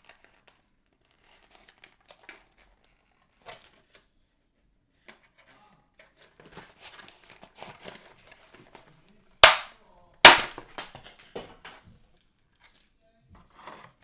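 Plastic and cardboard toy packaging being handled, with faint crinkling and clicks. It is broken by two loud sharp cracks about a second apart, near the middle, each followed by a quick run of smaller clicks.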